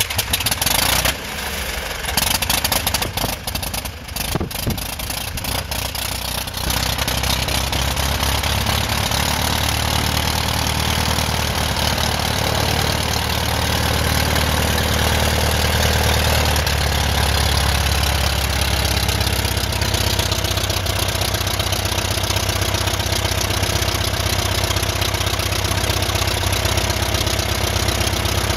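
A Van's RV-8's four-cylinder horizontally opposed aircraft engine running just after its first start, propeller turning. It runs rough and uneven for the first several seconds, then settles into a steady idle.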